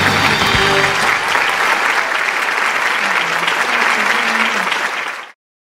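Audience applauding loudly as the last notes of the accompanying music die away about a second in; the applause carries on steadily and cuts off suddenly near the end.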